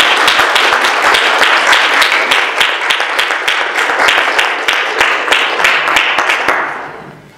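Audience applauding at the end of a talk: many hands clapping in a dense, steady patter that dies away near the end.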